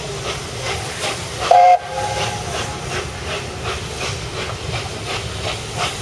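LNER A1 Peppercorn steam locomotive 60163 Tornado working under steam, its three-cylinder exhaust beating about three or four times a second over a steady hiss, heard from an open carriage window behind the engine. About a second and a half in, its whistle gives one short, loud blast.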